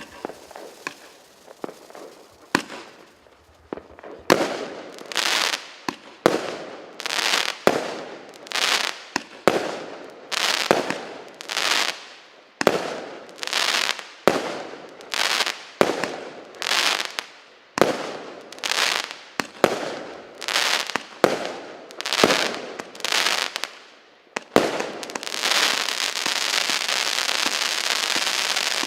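Consumer firework cake (a 169-shot, 0.8-inch battery) firing: a few scattered small cracks, then a steady run of shots a little under one a second, each a sharp bang fading into crackle. Near the end the shots give way to a dense, continuous crackling.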